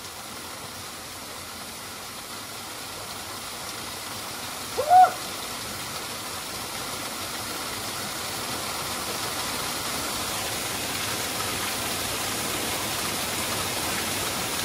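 Small waterfall pouring into a rock pool, a steady rush of water that slowly grows a little louder. About five seconds in, one short call rising in pitch cuts through it.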